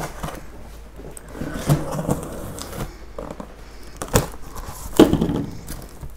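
Cardboard box and packaging being handled: irregular rustling with scattered knocks, the two sharpest about four and five seconds in.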